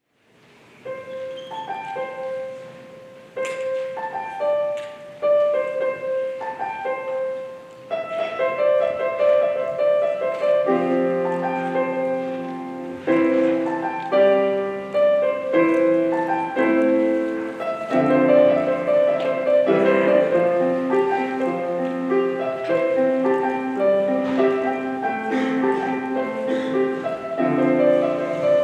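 Piano playing a gentle instrumental intro: a sparse single-note melody at first, joined about ten seconds in by fuller chords with lower notes underneath.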